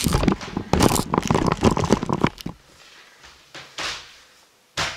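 Handling noise from the camera being carried and set down: rubbing, rumble and quick plastic knocks for about two and a half seconds, then quieter with a couple of light knocks.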